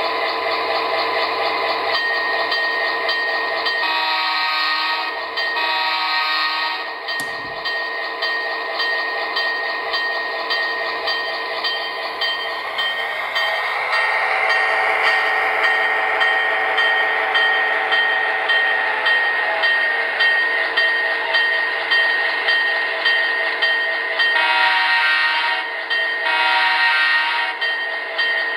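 Sound-equipped HO scale EMD F7 model locomotive's small onboard speaker playing a diesel engine sound, with two short horn blasts about four seconds in and two more near the end.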